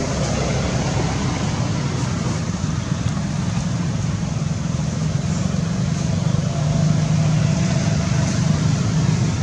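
Steady low rumbling background noise with an even hiss above it and no distinct sound events.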